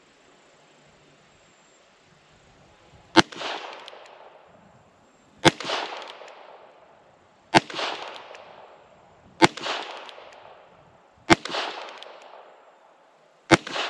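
Six shots from a Heritage Rough Rider .22 LR single-action revolver firing CCI Blazer rounds, one about every two seconds, each trailing off in an echo. All six fire normally, with no misfire or weak-sounding round.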